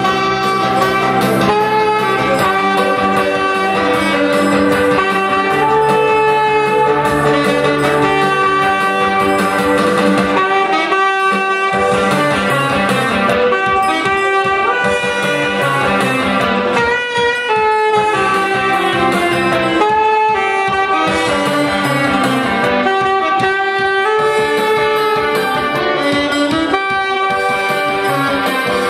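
Saxophone playing a melody over a backing track with guitar.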